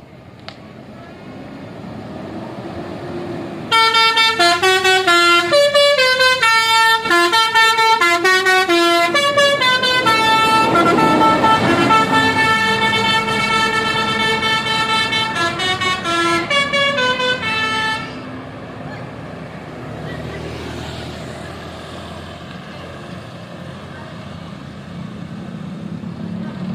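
Telolet musical air horn on an ALS bus playing a quick melody of stepping notes, then a held chord with more short notes, from about four seconds in until it stops sharply around eighteen seconds. The bus's engine rumble is heard rising before the horn and running on after it.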